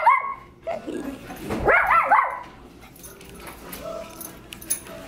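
Yorkipoo puppy barking in short, high-pitched yips: one at the start and a quick run of several about two seconds in.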